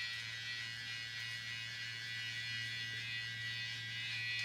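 PMD Clean Pro RQ facial cleansing brush running with a steady buzz while it works a foaming cleanser into a lather on the face.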